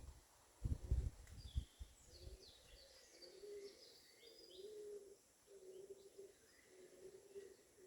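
Wild birds singing: quick high chirps and twitters for a couple of seconds from about a second and a half in, then low hooting notes repeated about five times through the second half. A brief gust of wind on the microphone about a second in.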